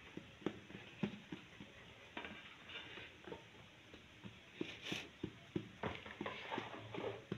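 Fingertips and palms pressing and patting pizza dough flat on a floured countertop: soft irregular taps, with a few brief rubbing swishes about two-thirds of the way in.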